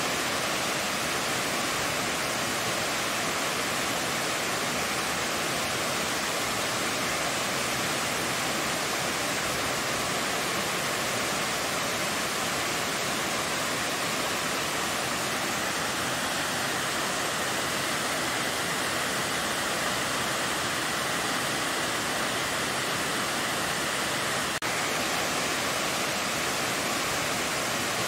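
Tiered waterfall cascading down rock ledges: a steady, even rush of falling water.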